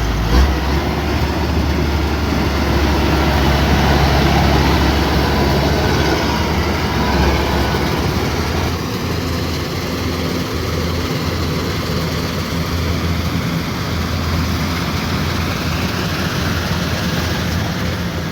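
Kubota DC108X combine harvester running steadily, a loud engine drone with a brief knock about half a second in.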